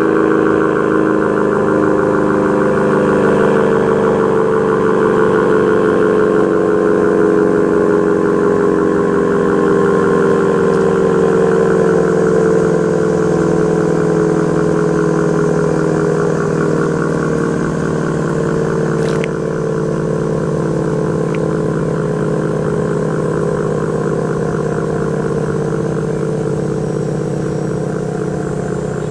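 ACA P-50 dual-tone electromechanical tornado siren sounding a chord that slowly falls in pitch and gradually grows quieter, as the siren winds down after its test signal.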